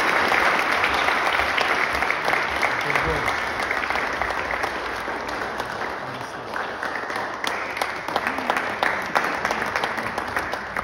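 Audience applauding, dense clapping that slowly thins and fades, with voices mixed in.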